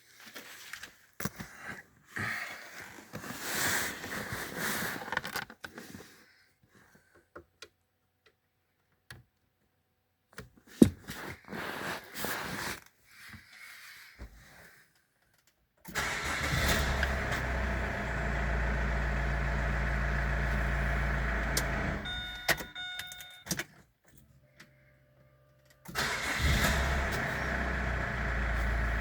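Opel Antara engine starting and running steadily, now that the blown 15 A BSM fuse has been replaced, with a few short beeps between two stretches of running. It is preceded by clattery handling sounds and a sharp click.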